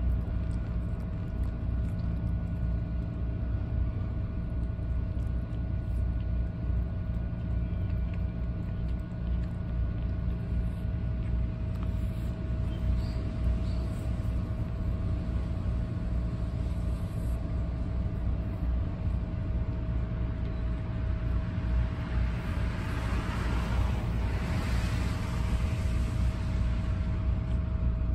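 A steady low mechanical rumble with a constant hum, joined about 22 seconds in by a rushing noise that swells and fades away after a few seconds.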